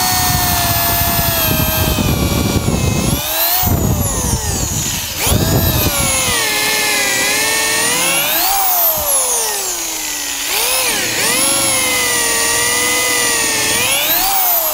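Corded DeWalt electric drill boring into a wooden post with a long twist bit. The motor's whine rises and falls in pitch several times, with a rough grinding of the bit in the wood beneath it, strongest in the first half.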